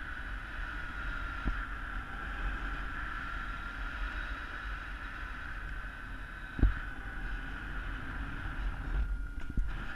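Wind rushing over a paraglider pilot's helmet-mounted camera in flight: a steady rumble with a thin high whistle that drifts a little in pitch. A few short knocks, the loudest about two-thirds of the way through.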